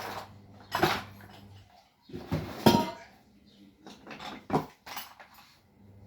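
Metal tools and parts clattering and clinking as they are handled: several separate knocks, the loudest a bit under three seconds in, over a faint steady hum.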